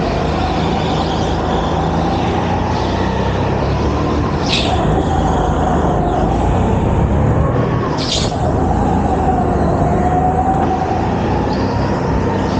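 Go-kart running at speed round an indoor track, heard on board: a steady low rumble with a wavering whine that rises and falls through the corners. Two brief hisses cut through, about four and a half and eight seconds in.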